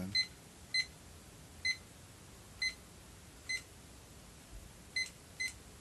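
Digital timer beeping as its buttons are pressed: about eight short high beeps at uneven spacing, roughly one a second, with two close together near the end, as the timer is being set.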